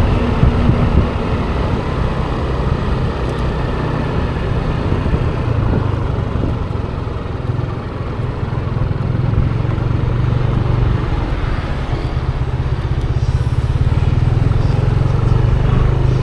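Motor scooter engine and road rush while riding, the scooter slowing down; from about halfway, a steady low engine hum at low speed.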